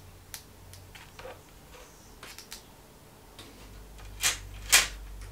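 Small clicks and taps of plastic being handled. About four seconds in come two louder, brief crackles as a thin Lexan polycarbonate sheet is lifted and flexed over the plastic lid frame.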